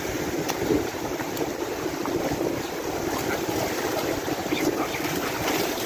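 Waves washing in over shallow surf at the shoreline: a steady rushing of water and foam.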